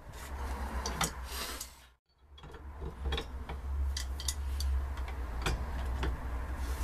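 Metal hand tools clinking and scraping as a pipe wrench and a spanner are fitted onto a steering rack held in a vise: scattered short clicks and knocks over a steady low hum, with a brief silence about two seconds in.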